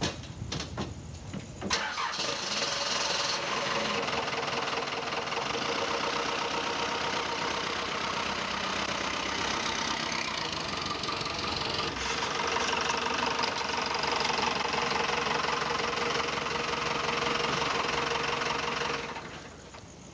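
A car engine starts about two seconds in and runs steadily, then stops near the end.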